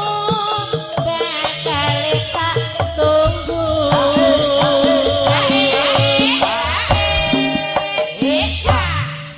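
Live Javanese gamelan music in pelog tuning, with hand-drum strokes under a long, wavering held melody note. The music breaks off sharply near the end.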